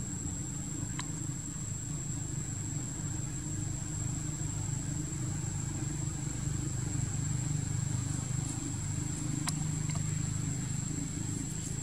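Steady low hum of a motor vehicle engine running nearby, swelling slightly partway through, with a thin steady high-pitched whine above it and a few faint clicks.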